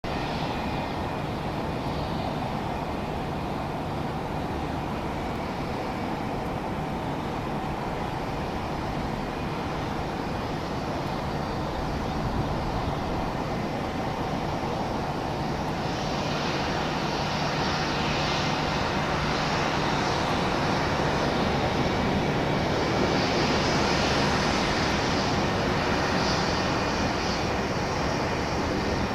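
Boeing 737-800's CFM56 jet engines on approach to land: a steady engine whine and rush, growing louder over the second half.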